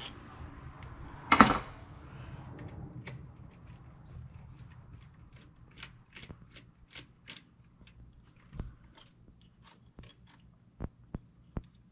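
Hand tools clicking and clinking on metal fittings as the Quadrajet carburetor is taken off the engine. There is one loud clank about a second and a half in, then a run of light ticks in the second half.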